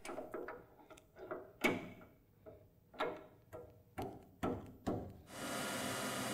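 About half a dozen irregular metal clicks and knocks as the quick-change tool post and its tool holder are handled on a Tormach 15L Slant-PRO CNC lathe. About five seconds in, a steady machining hum starts as the lathe runs, turning a part.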